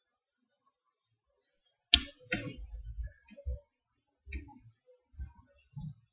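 Close handling noise: one sharp click about two seconds in, then scattered soft knocks and small clicks.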